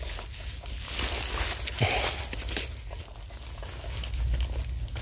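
Irregular crunching, crinkling and rustling of hands digging through mud packed with matted mimosa roots and empty snail shells.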